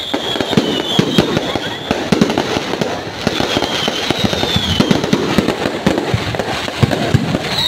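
A fireworks display going off in a dense, continuous barrage of bangs and crackles, with a high whistle sounding twice.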